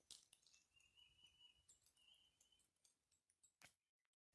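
Near silence: faint outdoor ambience with a few soft clicks and a faint high thin tone in the middle, dropping to dead silence just before the end.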